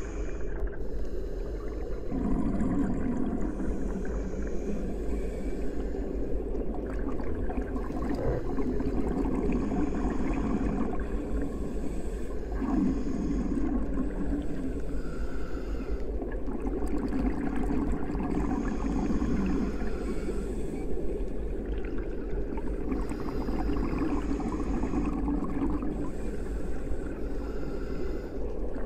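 Muffled underwater sound picked up by a submerged camera: a steady low water rumble that swells every four to six seconds.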